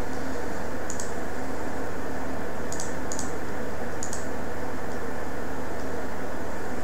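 Several sharp computer mouse clicks over a steady background hiss and hum, with a quick pair of clicks about three seconds in.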